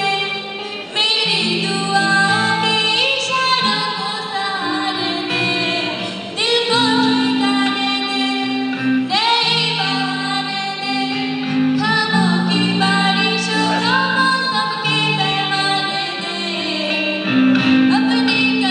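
A woman sings a Hindi song into a microphone over a PA system, with electric guitar accompaniment. The melody runs without a break, in long held notes.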